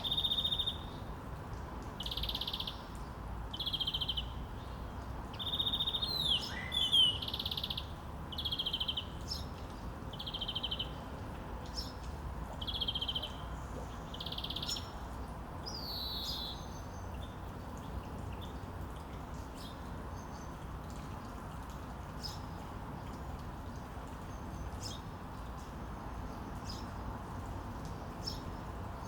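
Small birds calling: a short trilled, high-pitched call repeated about once a second, then stopping about halfway through, leaving only scattered faint high chirps over a steady outdoor background noise.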